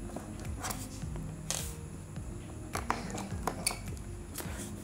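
Background music with steady held notes, with a few light clicks and taps over it.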